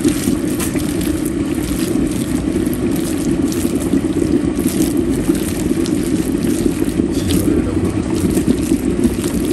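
Meat cooking in a pan with a steady sizzle, while a utensil scrapes and stirs it.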